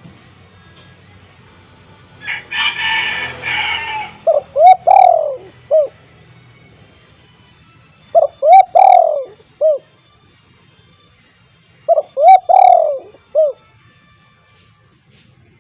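Spotted dove (tekukur) cooing loudly: three call phrases of several short cooing notes each, repeated about every four seconds. A brief noisy burst comes before the first phrase.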